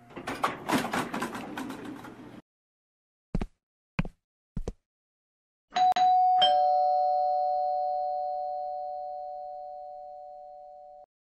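A two-tone ding-dong doorbell chime, a higher note then a lower one, ringing on and fading away over about five seconds. Before it come a couple of seconds of clattering noise and three short thumps.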